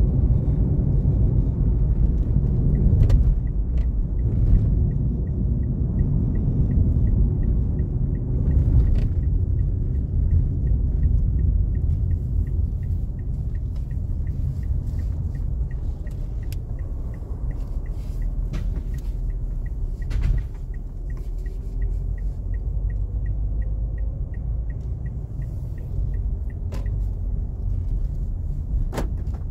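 Low road and engine noise inside a moving car's cabin. The turn signal ticks steadily from a couple of seconds in until shortly before the end.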